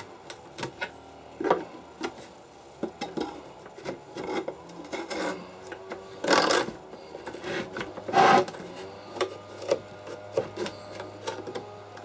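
Wooden parts of an antique tool chest being worked loose by hand: scattered taps, clicks and knocks of wood and tool, with two louder scrapes of wood rubbing on wood about six and eight seconds in.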